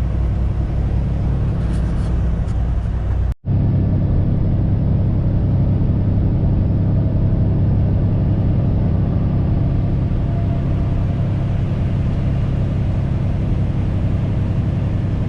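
Steady drone of a tractor-trailer's diesel engine and road noise heard from inside the cab while driving at highway speed. The sound drops out for an instant about three and a half seconds in, then carries on.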